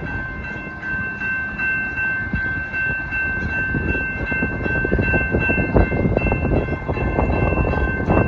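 Amtrak Hiawatha locomotive's air horn sounding a long, held multi-note chord with a few brief breaks, over the rumble and rapid clatter of the passing train, which grows louder from about two seconds in.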